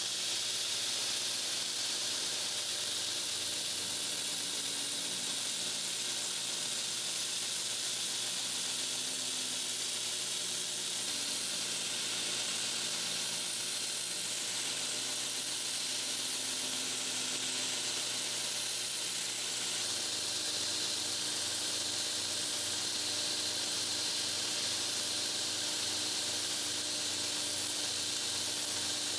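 Belt grinder running steadily with a knife's handle scales pressed against the moving abrasive belt, making a continuous sanding hiss over a low motor hum.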